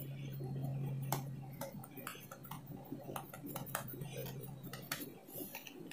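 Faint, irregular light clicks and taps as hands press a stuffed dough ball flat on a wooden board, over a steady low hum that fades near the end.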